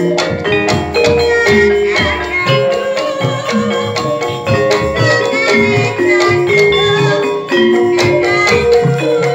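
Javanese gamelan music: struck mallet instruments ring out a busy run of pitched notes over regular drum beats, accompanying a trance dance.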